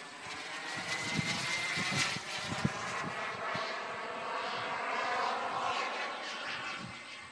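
RC model jet's turbine engine passing overhead: a rushing roar with a faint whine that rises in pitch in the first couple of seconds, loudest through the middle and fading near the end. A few low thumps sound underneath.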